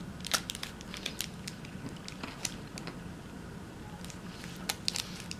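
Someone chewing a Violet Crumble bar, chocolate-coated honeycomb toffee, giving scattered small crunching clicks, over a low steady hum.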